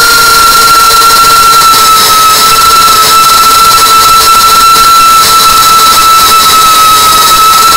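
FPV quadcopter's motors and propellers whining loudly at a nearly steady pitch, dipping slightly a couple of times, over a hiss of rushing air.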